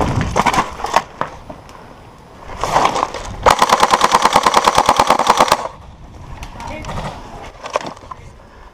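Tokyo Marui AA-12 electric airsoft shotgun firing one full-auto burst of about two seconds, an even rapid rattle of shots starting about three and a half seconds in.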